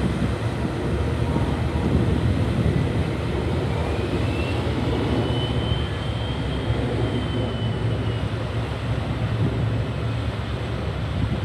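Steady low rumble of a 41.5 m high-speed catamaran ferry's engines under manoeuvring power while berthing, the stern wash churning the water. A faint high whine rises and then falls about halfway through.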